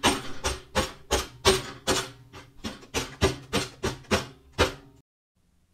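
A rapid, even series of heavy bangs, about four a second, over a low steady drone; the bangs stop abruptly about five seconds in.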